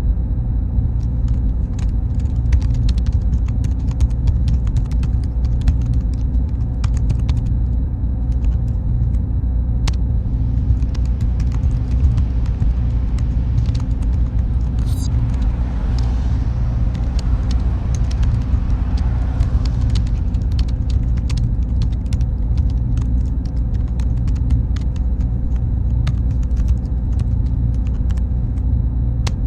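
Server room ambience: a steady low drone of running equipment, with a thin high tone and scattered light clicks. A soft hiss swells and fades between about ten and twenty seconds in.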